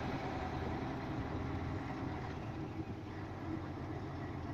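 Lorry engine running low and steady as it moves at crawling speed, heard from inside the cab.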